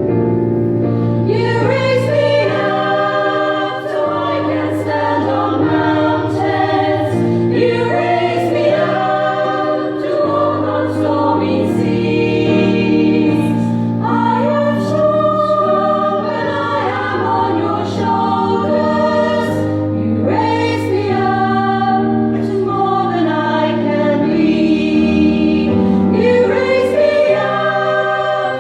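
Women's choir singing a song in several phrases, with low sustained notes held beneath the voices.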